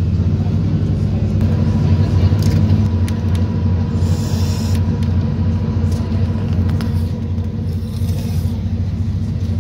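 Steady low rumble and drone of an ADP-class diesel railcar running along the line, heard from inside the passenger cabin. Brief hissing swells come in about four seconds in and again near the end.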